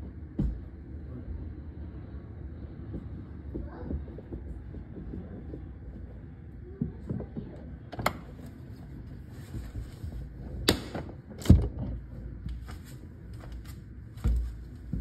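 Several sharp knocks and clunks, the loudest about eleven and a half seconds in, over a low steady rumble.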